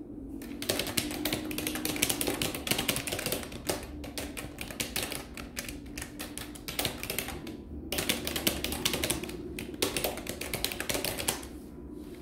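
Fast, continuous typing on a computer keyboard, with dense irregular key clicks and a short pause about eight seconds in.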